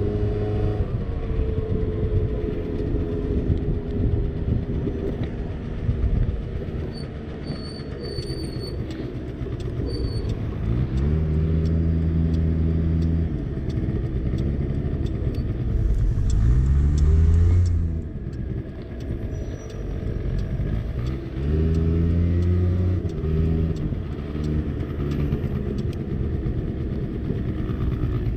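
50cc scooter engine running while riding, over a steady rush of road noise. Three times the engine pitch climbs and then holds steady as the scooter accelerates, the middle one the loudest.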